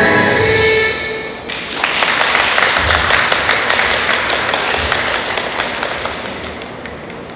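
Routine music ends about a second in, then applause with many hand claps, fading away near the end.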